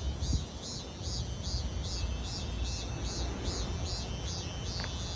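A cicada calling in a fast, even pulse of about two and a half buzzes a second, breaking off near the end. A low wind rumble on the microphone runs underneath.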